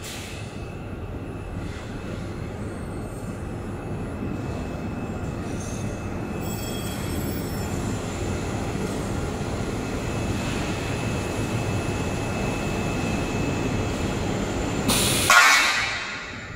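Steady mechanical rumble and hiss of running factory machinery, growing slightly louder, with a few faint steady tones above it. About fifteen seconds in comes a short, loud hiss that stops sharply.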